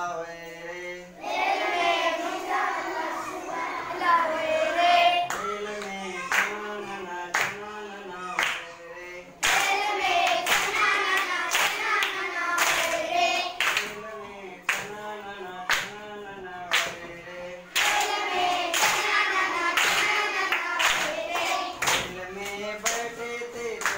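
A group of schoolchildren sing a Marathi action song in unison, clapping their hands about once a second. Each verse begins with a loud burst of voices, about every eight seconds.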